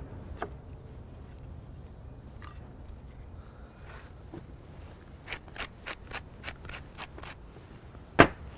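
Wooden pepper mill being twisted, a run of about nine short grinding crunches, then near the end one sharp, loud knock as the mill is set down on the counter.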